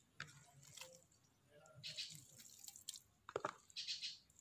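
Faint soft wet slaps as pieces of raw beef are dropped by hand into a clay cooking pot, several in a row at uneven intervals.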